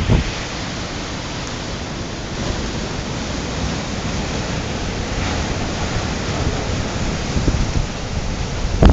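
Storm surf breaking on the shore under strong wind, with wind buffeting the microphone throughout; a heavy gust hits the microphone right at the end.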